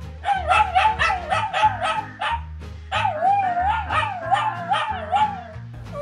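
Shiba Inu howling in two long, yodel-like bouts, its pitch wobbling up and down about four times a second, with a short break near the middle. Background music with a steady low beat plays underneath.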